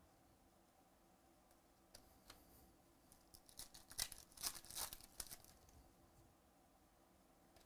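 Shiny foil wrapper of a 2018 Donruss Optic baseball card pack being torn open by hand: faint crinkling with a couple of light clicks, then a quick cluster of sharp crackles from about three and a half to five and a half seconds in.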